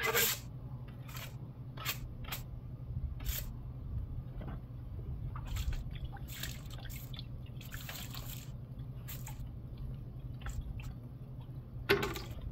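Scattered short scrapes and wet clicks of a steel stucco trowel being cleaned of wet acrylic finish, louder at the start and near the end, over a steady low hum.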